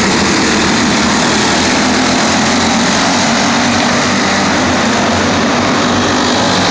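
A pack of racing go-karts running together on a dirt oval, their small engines making a loud, steady, continuous engine noise.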